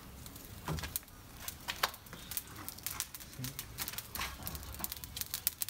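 Embers of a parrilla grill fire crackling, an irregular run of sharp pops and snaps that grows denser in the last couple of seconds.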